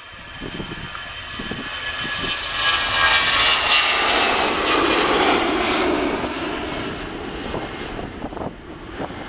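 Airbus A320's twin jet engines at takeoff thrust as the airliner rolls, lifts off and passes close by. A building roar with a high whine, loudest about three to six seconds in, drops in pitch as it passes, then fades.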